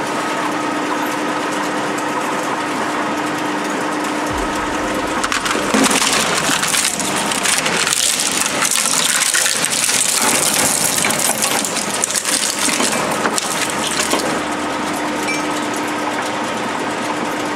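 Twin-shaft industrial shredder's cutters running with a steady hum; about five seconds in they catch a graphics card and crush and tear it apart for about nine seconds, with dense cracking and crunching of plastic shroud, metal heatsink and circuit board, before the shredder runs empty again.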